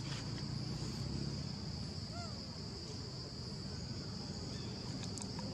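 Steady, unbroken high-pitched drone of insects in the forest, with a faint short chirp-like call about two seconds in.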